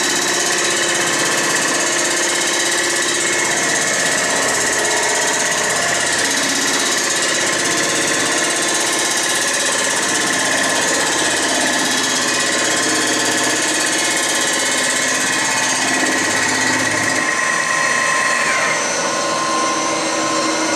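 Milling machine fly cutter taking a decking pass across the cast iron deck of a Ford Model A engine block: a steady, loud machining noise with a high whine, during the pass that cleans up the block's distorted deck surface. Near the end the whine drops in pitch.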